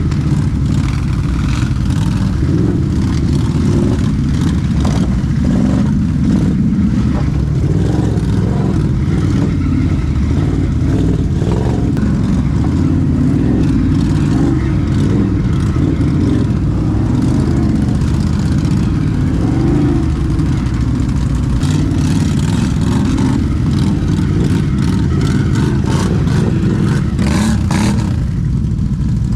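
ATV engine running steadily under a rider's throttle, with knocks and rattles now and then, most of them near the end.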